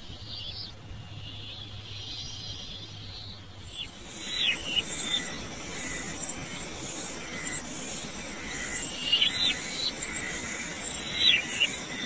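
Forest ambience: birds calling with short, falling whistled notes, a few in quick succession about four, nine and eleven seconds in, over a steady high insect drone that sets in about four seconds in.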